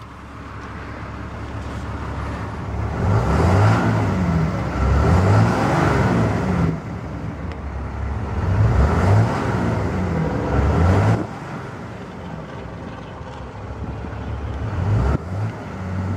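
Cummins 6.7-litre inline-six turbo diesel of a 2011 Ram 2500 being revved repeatedly while parked. Engine speed climbs and falls in several swells, drops back sharply about seven and eleven seconds in, then runs near idle with a short blip near the end.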